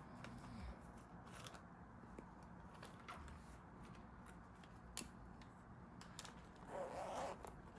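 Faint desk sounds of someone studying: a few light clicks and, near the end, a short scratchy rustle like pen or paper.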